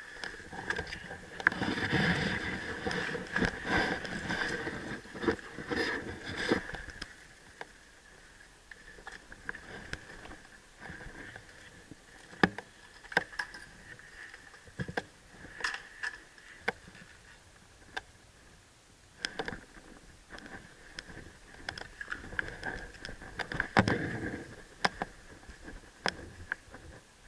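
Rustling, heaviest in the first several seconds, with irregular sharp clicks and snaps scattered throughout.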